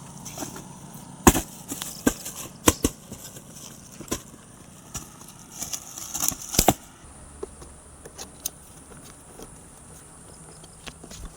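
Scattered sharp clacks and knocks of hard plastic toy bowling pieces being handled and set down, with a quick cluster of them about five to seven seconds in.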